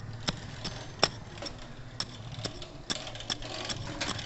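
A small hand digging tool chopping repeatedly into loose, gravelly red soil: a run of sharp, irregularly spaced strikes, two or three a second, the loudest about a second in, over a steady low hum.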